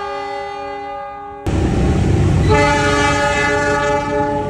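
CC 206 diesel locomotive's air horn sounding a held multi-tone chord that fades, then an abrupt cut about a second and a half in to the loud low rumble of a train, with the horn chord sounding again about a second later and holding to the end.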